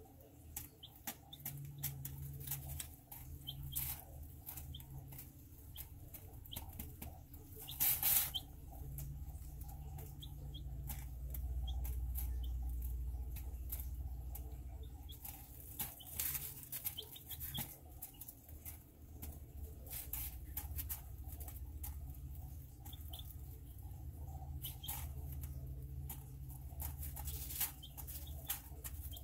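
Young chicks pecking and scratching at crumbled feed and bedding: many small irregular ticks and rustles, with a louder brief scuffle about eight seconds in. Soft clucking peeps come now and then.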